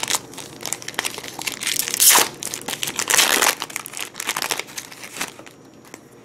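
Foil Yu-Gi-Oh booster pack wrapper being torn open and crinkled by hand, in rapid crackling bursts that stop about five seconds in.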